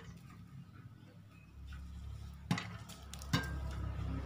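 Popcorn kernels popping inside a closed double-sided frying pan on a portable gas stove: a loud pop at the very start, then a few more sharp pops roughly a second apart. A low steady hum comes in about a second and a half in.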